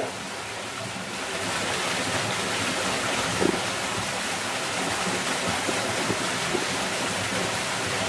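Steady rush of water from a thin waterfall pouring into a rock pool, with a few faint splashes from a person wading through the pool.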